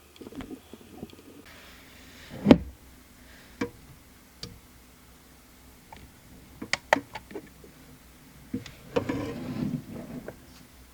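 Small clicks, taps and knocks from handling nail-polish bottles and tools while a base coat is applied, with one louder knock about two and a half seconds in and a brief rustle near the end.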